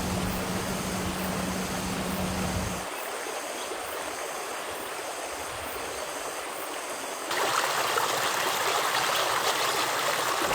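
Steady hiss of rain, with a low steady hum underneath that cuts off about three seconds in. The rain turns heavier and louder about seven seconds in.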